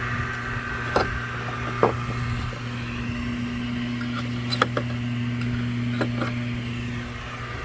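A steady low machine hum, with a few sharp clicks and taps scattered through it.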